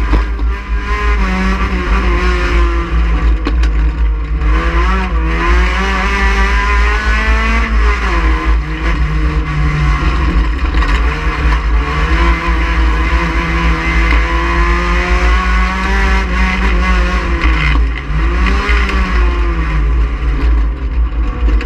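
Race car engine at racing speed, its pitch climbing under acceleration and falling back on lifts and downshifts several times, with a constant deep rumble underneath.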